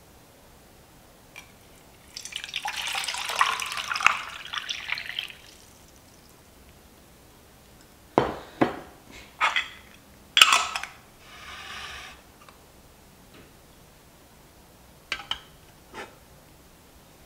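Water poured from a glass measuring cup into a metal cooking pot for about three seconds, then several sharp knocks and clinks as the cup is put down and the pot is set onto a canister stove's pot supports, with a couple of lighter clicks near the end.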